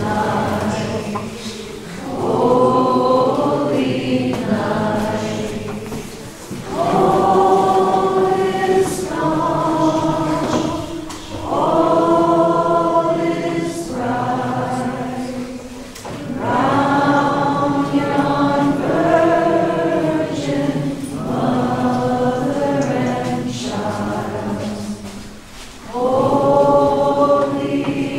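A group of voices singing a Christmas carol together, in held phrases of a few seconds with short breaks between them.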